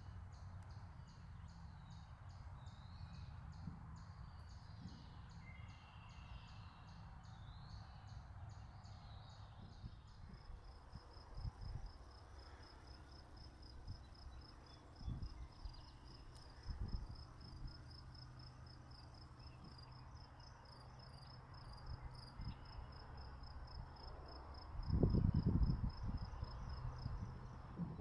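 Outdoor ambience in a grassy field: a high, rapid insect trill that settles into a steady pulse about a third of the way in, with scattered bird chirps early on and a low wind rumble on the microphone. A brief louder low rumble comes near the end.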